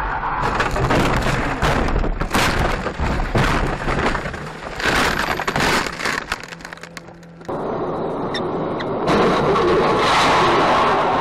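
A car crashing off the road and tumbling: a run of heavy impacts and crunching blows over several seconds, which then die down. After a sudden change, a steady rushing noise of a car driving through spray on a wet road.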